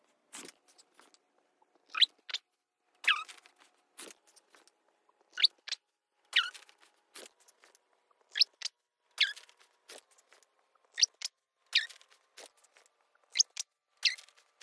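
A Bernedoodle puppy's play yips and squeals, sped up so that they come out as short, high-pitched, chipmunk-like squeaks, about one a second, each sliding quickly up or down in pitch.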